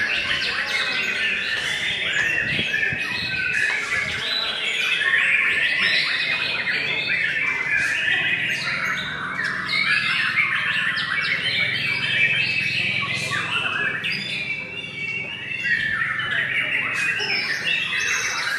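White-rumped shama (murai batu) singing a continuous, rapidly varied song of quick rising and falling whistled phrases, with other birds' song overlapping it.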